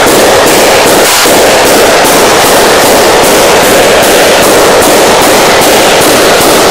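Homemade bang-box, a combustion chamber closed by a big Deutz engine inlet valve, firing on a butane-oxygen mixture with automatic ignition: a rapid, even string of explosive bangs. It is so loud that the recording is overloaded.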